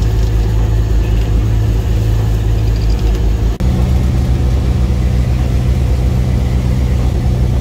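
An engine running steadily with a constant low hum. It breaks off for an instant about three and a half seconds in and carries on at a slightly different pitch.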